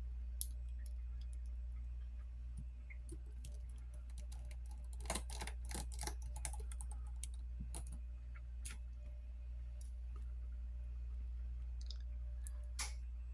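Scattered small clicks and taps of a precision screwdriver and tiny screws being worked on a smartphone's USB charging board, with a cluster of clicks about five seconds in, over a steady low hum.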